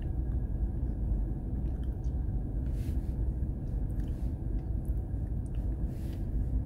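Steady low rumble in a car's cabin as the car crawls through snow and strong wind, the driver on the brake rather than the accelerator, with a few faint ticks.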